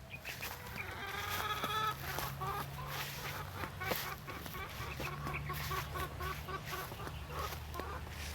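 Chickens clucking: a drawn-out call about a second in, followed by a long run of quick, short clucks, several a second.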